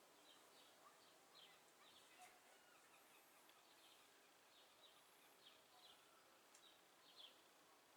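Near silence with faint bird chirps in the background: short, high chirps repeating about once a second.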